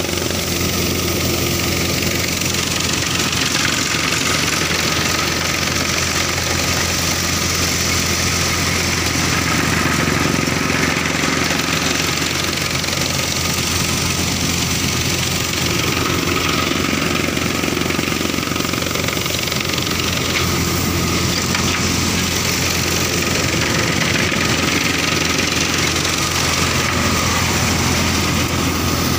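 Massey Ferguson 1035 tractor's three-cylinder diesel engine running steadily under load, driving a thresher that is threshing mustard. The engine and the thresher's drum blend into one even, continuous machine noise.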